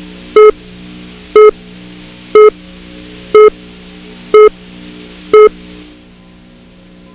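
A loud electronic beep repeating evenly once a second, six times, over a steady low drone. The beeps stop and the drone drops away about six seconds in.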